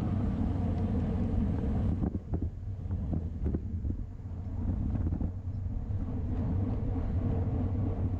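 Wind rushing over an action camera's microphone on a racing bicycle at speed: a steady low rumble, with a few short knocks between about two and three and a half seconds in.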